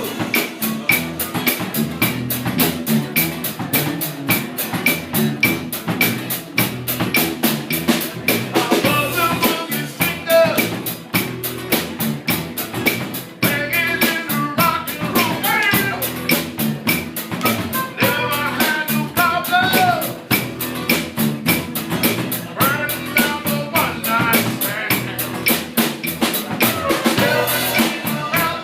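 Live band playing an up-tempo song: a drum kit keeps a steady beat, with a voice or lead line coming in and out over it.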